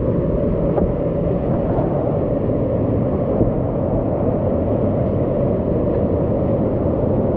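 Whitewater rapids and a waterfall rushing around a kayak: a loud, steady, muffled roar of churning water with little high end and no separate splashes standing out.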